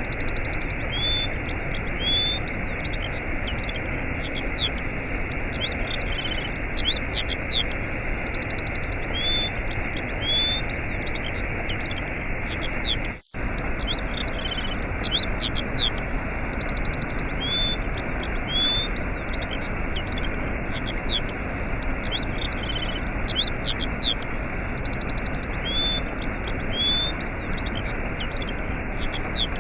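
Waterfall rushing as a steady noise, with small birds chirping and twittering over it in a pattern that repeats about every eight seconds. The water sound cuts out for an instant a little under halfway through.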